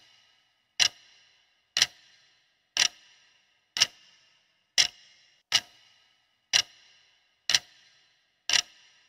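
Clock-tick sound effect for a quiz countdown timer, ticking once a second, nine ticks in all. Each tick is sharp and short, with a brief ringing tail.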